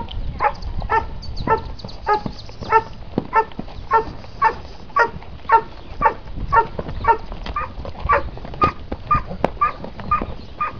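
A dog barking in rapid, evenly spaced yaps, about two to three a second, without a break.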